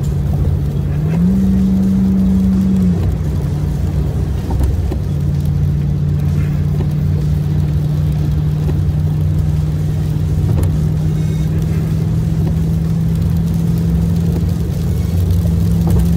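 Car engine and road noise heard from inside the moving vehicle on a wet highway: a steady low drone whose pitch steps up about a second in and drops back near three seconds, then slowly creeps upward.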